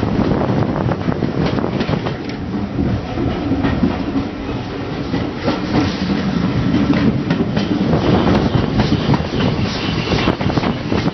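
Railway carriage running at speed, its wheels clattering steadily along the track, heard from an open carriage window.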